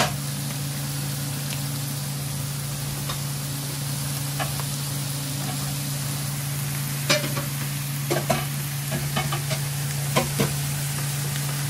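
Taco meat frying on a comal, a steady sizzling hiss over a low hum. From about seven seconds in, scattered clicks and scrapes of the meat being stirred and turned on the griddle.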